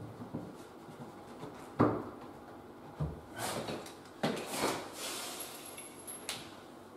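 An oak door being handled in its frame during fitting: a few wooden knocks and bumps, the loudest about two seconds in, with some scuffing in between.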